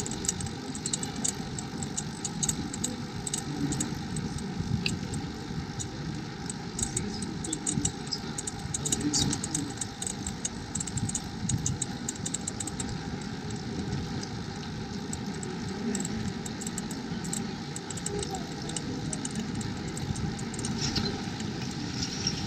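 Bicycle rolling over a block-paved street: a steady low rumble with frequent small rattling clicks throughout.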